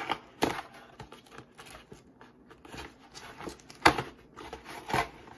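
Cardboard shipping mailer being torn open and handled: scraping and rustling of the cardboard, broken by three sharp cracks, the loudest near four seconds.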